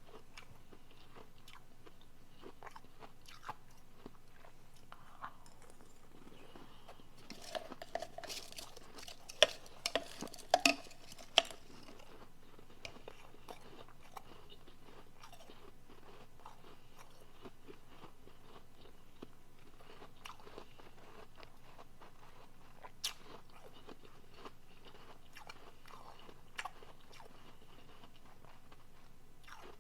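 Soft refrozen powdery blender ice being bitten and chewed: scattered small crunches, with a run of loud bites from about eight to eleven seconds in and one more sharp crunch near the middle of the second half.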